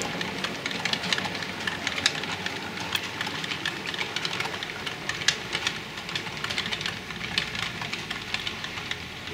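Model train, the C1 Atlantic locomotive hauling a rake of coaches, running steadily along the layout's track: a steady running rumble with many small, irregular clicks from the wheels on the rails and pointwork.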